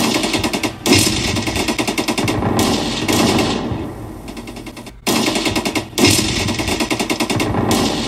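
Machine-gun fire sound effect in long rapid bursts. It cuts out briefly about five seconds in and starts again.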